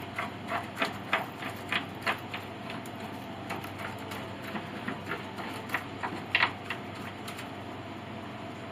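Irregular light clicks and taps as a soundboard crown-measuring gauge is set down and handled on a grand piano's soundboard. The clicks come several a second at first, then thin out, with a short cluster about six seconds in, over a faint steady hum.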